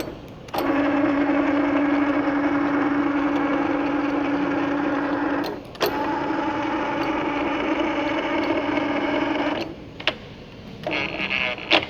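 Large metal lathe (500 mm swing, 2 m bed) running with a steady, even-pitched hum. It stops briefly about halfway through and starts again, then stops near the end, followed by a couple of sharp clicks and short bursts of mechanical clatter.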